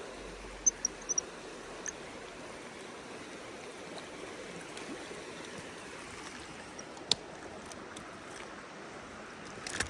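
Mountain river water running steadily over rocks, with a few faint short clicks and ticks in the first two seconds, once about seven seconds in, and again near the end.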